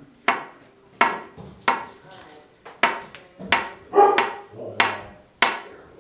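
A steel Chinese cleaver chopping through a log of dumpling dough and striking a granite countertop: a sharp clack with a short metallic ring, repeated roughly eight times at an even pace, about one every 0.7 seconds.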